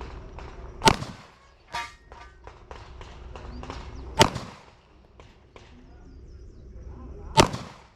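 Pistol shots: three loud, sharp reports about three seconds apart, the first a second in, among many fainter gunshots. A brief ringing clang follows about a second after the first shot.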